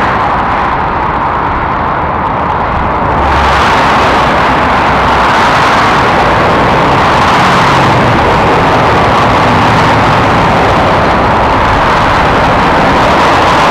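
Continuous noise of dense motorway traffic, cars and lorries passing below at speed, with tyre and engine noise blended together. It grows fuller and brighter about three seconds in.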